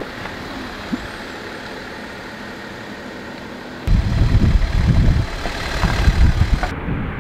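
Wind blowing over an outdoor microphone: a steady hiss at first, then from about four seconds in heavy low buffeting in uneven gusts that drowns everything else. The sound changes abruptly near the end.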